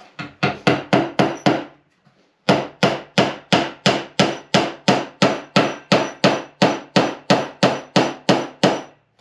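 A hammer driving small square-head nails into a wooden cabinet top. A quick run of about six blows, a short pause, then a long steady run of about three blows a second as the nails are set.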